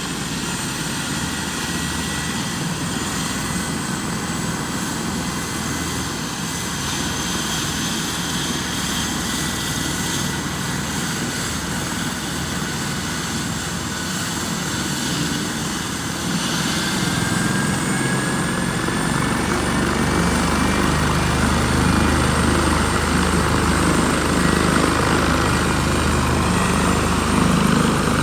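Air ambulance helicopter starting up: steady high turbine whines over the engine and rotor noise. About two-thirds of the way through it grows louder, with a rising whine as the engines spool up.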